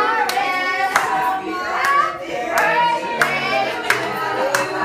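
People singing a song together, with hand claps keeping time about every two-thirds of a second.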